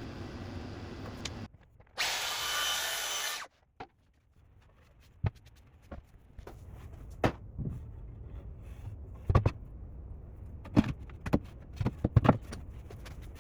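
A power drill runs for about a second and a half, then scattered knocks and clicks of tools and parts being handled on the bench.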